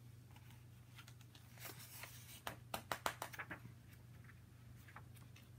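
Faint rustling and crackling of a hardcover picture book's paper pages being handled, a cluster of short sharp crackles over about two seconds midway, with a couple more near the end.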